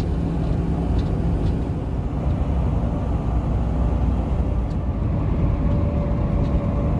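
Rollback tow truck cruising at highway speed, heard from inside the cab: a steady engine drone with tyre and road rumble.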